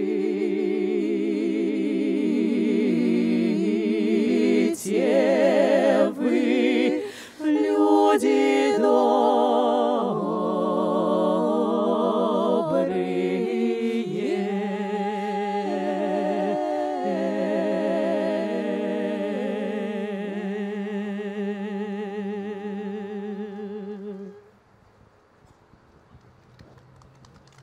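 Female folk vocal quartet singing a cappella in close harmony, drawn-out phrases with vibrato and no clear words, settling into a long held final chord that stops abruptly about 24 seconds in.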